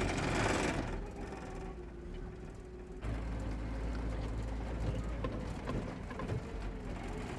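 Pickup truck driving across a pasture: a steady low engine and drivetrain rumble with scattered light clicks and rattles. The rumble grows louder about three seconds in.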